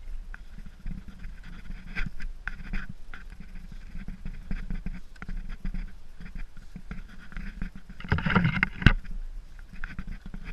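Footsteps and rustling of people hiking through grass and brush in the woods, over the low rumble of a handheld camera being carried. A few sharp snaps and rustles early on and a louder rush of brushing about eight seconds in.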